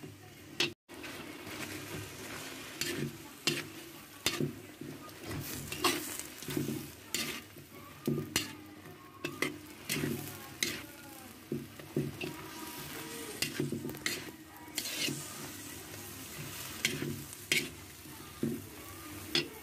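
Vegetables sizzling in a wok while a metal spatula stir-fries them, scraping and clicking against the pan at irregular intervals. There is a brief break in the sound about a second in.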